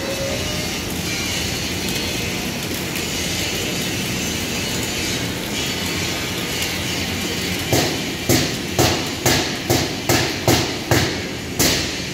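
Steady crackling hiss of arc welding, from a Fimer TM500 welding machine, then, from about two-thirds of the way in, a run of about nine sharp hammer blows on the steel frame, roughly two a second.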